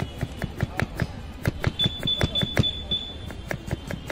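Knife rapidly slicing a cucumber on a wooden chopping board, the blade tapping the board about five times a second. A high steady tone sounds for about a second in the middle.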